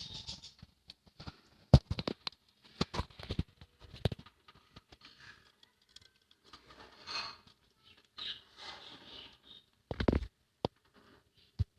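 Budgerigars moving about a small cage: scattered sharp taps, knocks and scratches, with faint high chirping in a few short stretches.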